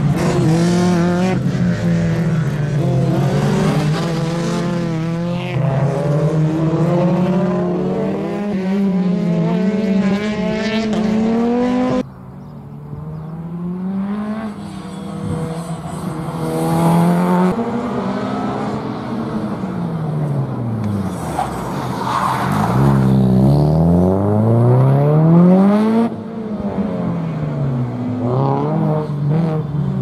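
Subaru Impreza WRX STI's turbocharged flat-four engine revving hard, its pitch climbing and dropping again and again as the car is driven through the gears at racing pace. The sound drops away suddenly about twelve seconds in, then builds back up, loudest about three-quarters of the way through as the car comes close.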